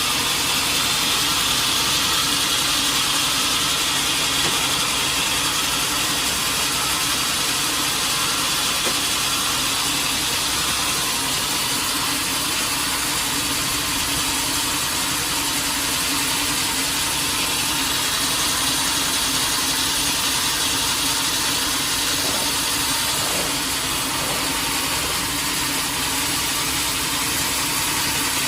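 Sawmill machinery running steadily: a motor's constant drone with a dense, even hiss over it.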